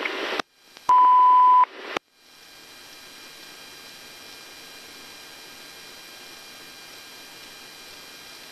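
Police radio channel: a burst of static, then a single loud steady beep lasting under a second, then the channel cuts off to a steady faint hiss.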